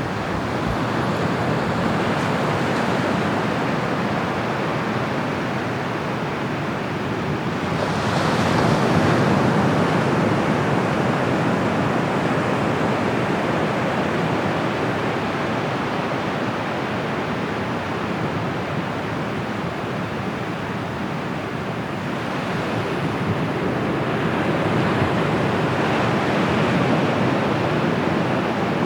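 Bay of Bengal surf breaking on a sandy beach: a steady rush of waves that swells louder about eight seconds in and again later on.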